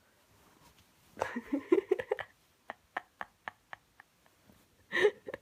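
A woman laughing: a short rising giggle, then a run of quick breathy laugh pulses, about four a second, that fade out, and a louder breathy burst near the end. She has a cough, and she says laughing sets it off.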